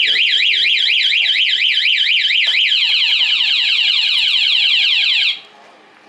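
Aftermarket anti-theft alarm on a Honda Wave 110i motorcycle, set off by a skeleton key turned in the ignition. Its siren sounds loud and electronic: first a warble sweeping up and down about four times a second, then about halfway a faster run of falling chirps. It cuts off suddenly near the end.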